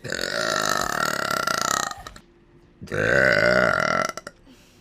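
A woman burping loudly twice: a long burp of about two seconds, then a shorter one of about a second that starts about three seconds in.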